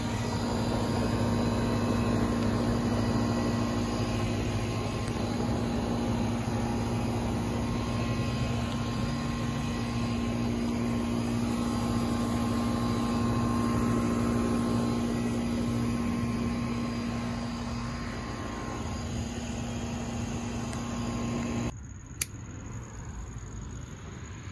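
A steady machine hum with a low held tone, which cuts off abruptly near the end, leaving a quieter background and a single click.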